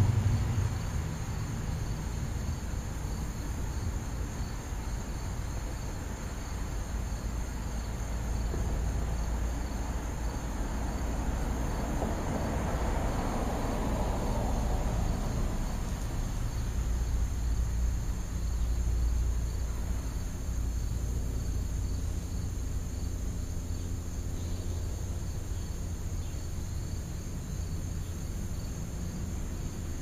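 Crickets chirring steadily over a low outdoor rumble, with a wider rush that swells and fades about twelve to sixteen seconds in.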